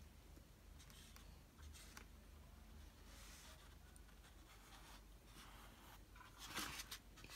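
Faint, scratchy strokes of a paintbrush laying acrylic paint on a stretched canvas, with a louder rustle near the end.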